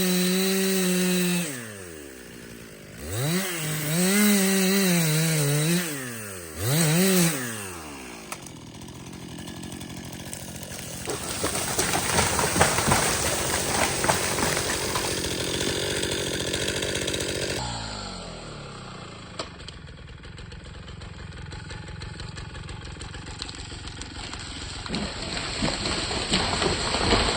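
Chainsaw running at full throttle in the cut, dropping to idle, revved twice more and shut off about 8 s in. Then a long crackling crash of the bitternut hickory falling through the branches, from about 11 to 17 s, followed by a steady rushing of wind.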